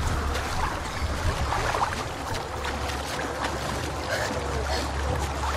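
Shallow forest stream running over rocks, a steady rush of water, with a low steady hum beneath it.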